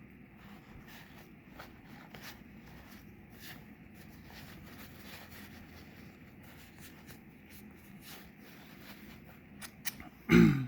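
Soft rustling and faint small clicks of hands wiping and handling a threaded injector fitting with a paper towel, then one loud knock near the end as something hard is set down or bumped.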